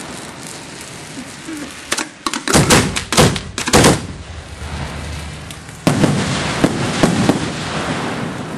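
Fireworks going off at close range: a rapid cluster of sharp bangs about two to four seconds in, then a sudden hissing rush with a few cracks from about six seconds in.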